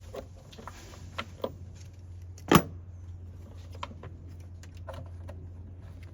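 A few sharp metal clicks and knocks as a 10 mm socket and hand tools are handled at the engine air box, the loudest about two and a half seconds in, over a steady low hum.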